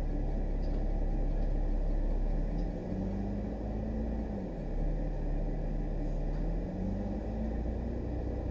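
Car running at low speed, heard from inside the cabin: a low rumble with an engine hum whose pitch rises about three seconds in, drops sharply near the middle, then climbs again.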